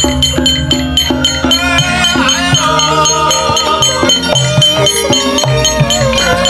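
Javanese gamelan playing: bronze metallophones struck in a steady stream of ringing notes over low, sustained gong tones. A held, wavering melodic line joins about two seconds in.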